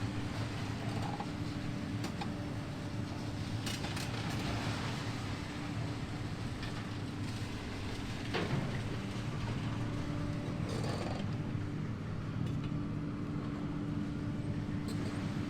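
Engine of heavy demolition machinery running steadily, with scattered clanks and creaks and one sharper knock about eight seconds in.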